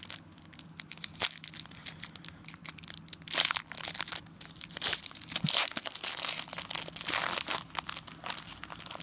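Shiny foil trading-card pack wrapper being torn open and crinkled by hand: a string of sharp crackles, with a few longer crinkling rustles as the wrapper is pulled apart.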